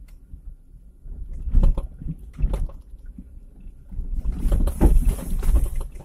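Inside the cabin of a Perodua Kembara 4x4 crawling over a muddy, rutted dirt track. A deep rumble from the body, suspension and tyres runs throughout. It jolts louder about a second and a half in and again a second later, then grows into a longer, louder stretch of rumble and hiss near the end.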